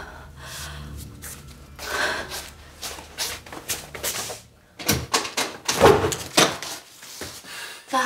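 Front door being unlocked and opened: a quick run of sharp clicks and knocks from the lock and handle in the second half, with a low steady hum earlier on.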